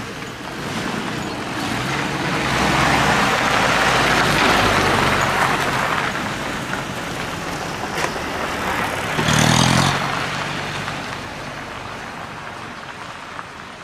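Motor vehicle engines running past: a swell of engine and road noise that builds to a peak around four seconds in and fades, then a short, loud engine burst around nine seconds in.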